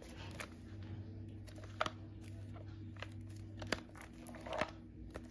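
Plastic shrink wrap on a cardboard smartwatch box crinkling as the box is handled and turned over in the hands, with a few short sharp crackles and clicks, over a steady low hum.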